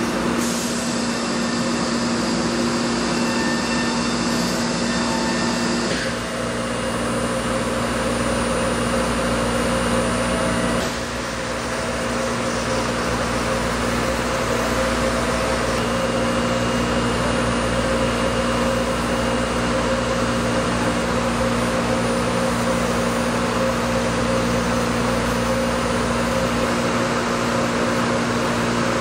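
Thermwood Model 90 five-axis CNC router running, its spindle driving a small cutter through low-density polyurethane foam: a steady machine whine and hiss with several held tones. The sound shifts briefly about six and again about eleven seconds in.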